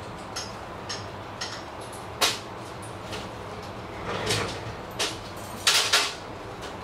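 Iron tattoo trolley being assembled by hand: scattered metal clinks and knocks of screws, nuts and frame parts. There is a louder knock about two seconds in and a cluster of sharp knocks near the end.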